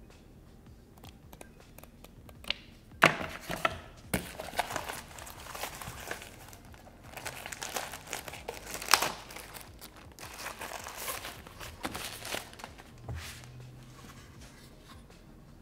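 Thin plastic wrapping bag crinkling as hands pull it open and off, with a few sharp crackles. It starts about three seconds in and dies down near the end.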